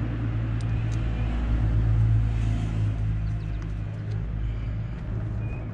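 An engine idling with a steady low hum, slightly louder about two seconds in. A few faint, light clicks come from handling a welding stinger.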